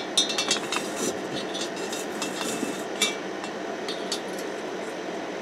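Light metallic clinks and knocks from handling a hot ceramic casting flask and metal tools: a quick cluster in the first second, one more about three seconds in. A steady machine hum runs underneath.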